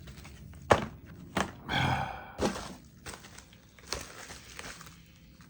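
Objects being handled and set down on a hard surface: a sharp knock just under a second in, then several lighter knocks, with a brief rustle of packaging in between.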